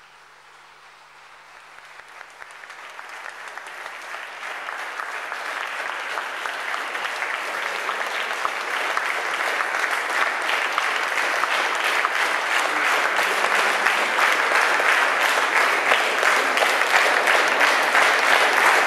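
Audience applauding, the clapping building steadily louder and denser throughout.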